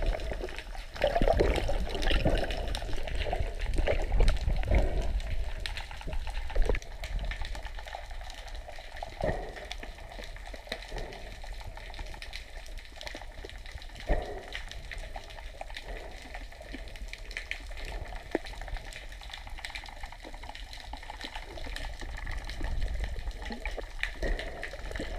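Muffled underwater sound picked up by a submerged camera: a low rumbling wash of water with scattered knocks and swishes from the swimmer's movements. These are busier and louder for the first several seconds, then settle into a quieter steady wash.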